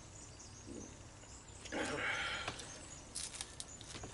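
Mouth noises of a man eating pizza: a short breathy sound about two seconds in, then a few small smacks and clicks near the end.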